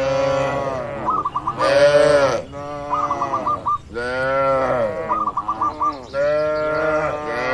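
Cattle mooing, one long call after another, about five calls that overlap. A bird's short chirping phrase repeats about every two seconds behind them.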